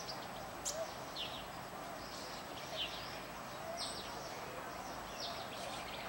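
Birds calling in short, high chirps that slide downward, irregularly about twice a second, over a steady outdoor hiss.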